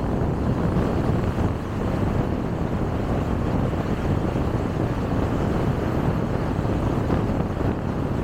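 Steady rumble of tyres and wind from a car cruising along a highway, holding an even level throughout.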